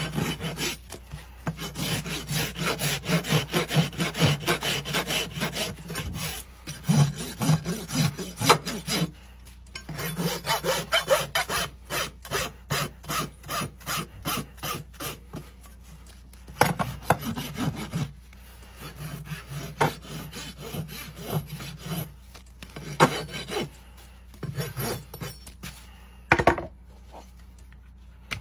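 Farrier's rasp filing a horse's hoof: runs of quick back-and-forth scraping strokes with short pauses between them, and a sharp knock near the end.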